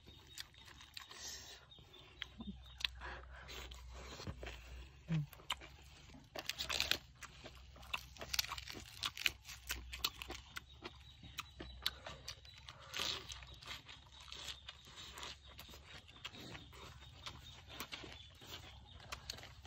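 Close-up eating and food-handling sounds: fingers squishing wet food in a bowl, lettuce leaves being torn, and chewing, heard as many short, irregular crunches and crackles.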